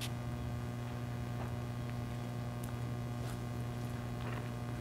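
Steady low electrical mains hum, with a few faint ticks over it.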